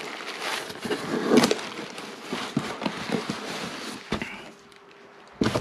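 Cardboard scraping and bubble-wrap packing crackling and rustling as a boxed mixer is pulled out of its shipping carton, busiest about a second and a half in and quieting near the end.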